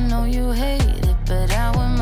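Background music: a song with deep sustained bass, a beat and a sliding melody line.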